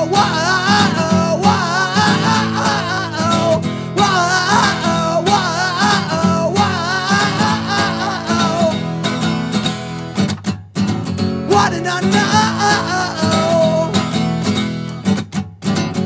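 Acoustic punk song: strummed acoustic guitar with wordless 'whoa' singing over it. It drops out briefly twice, about ten and fifteen seconds in.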